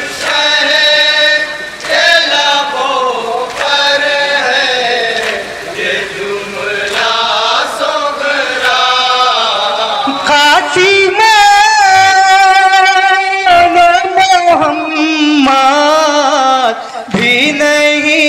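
Men chanting a nauha, a Shia Muharram lament, with a lead reciter singing into a microphone and other voices joining in. In the second half the voice holds long notes that waver and slide in pitch.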